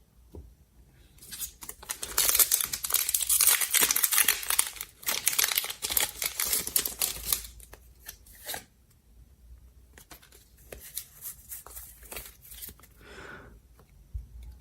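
Foil booster-pack wrapper being torn open and crinkled: a loud, dense crackling tear for several seconds, followed by softer rustling and light clicks as the wrapper and cards are handled.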